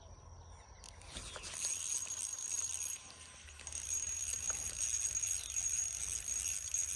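Spinning reel being cranked to retrieve line, a steady high whirr from its gears and rotor. It runs in two spells with a short stop about three seconds in.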